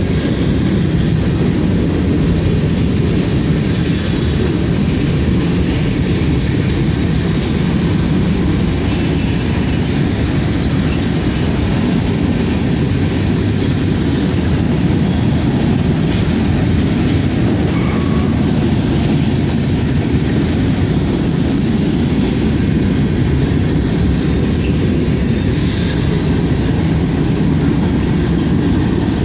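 Freight train of covered hopper cars rolling past close by: steel wheels on the rails making a steady, loud rolling noise that goes on without a break.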